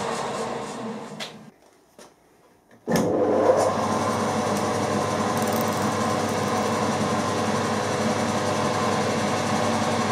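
Milling machine running steadily, fading away over the first second and a half, then a brief near-silent pause with a couple of faint clicks. About three seconds in the machine's steady running hum starts abruptly again and holds.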